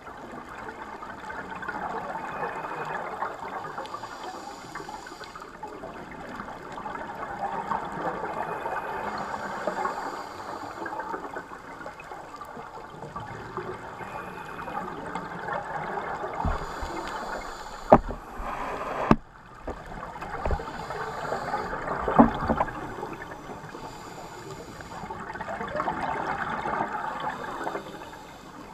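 Underwater scuba-dive ambience through a camera housing: the diver's regulator breathing, with exhaled bubbles gurgling and hissing in swells every few seconds. A few sharp knocks come about two-thirds of the way through.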